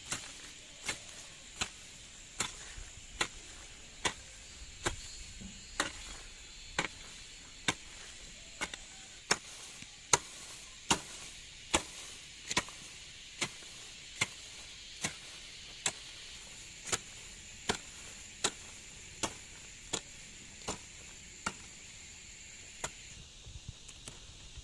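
Steady chopping with a hand tool: about 25 sharp strikes at an even pace of roughly one every 0.8 seconds, stopping near the end.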